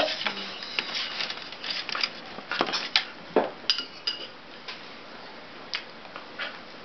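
Cutlery clinking against dishware: a scattered run of light clinks and knocks, busiest in the first few seconds and then only now and then.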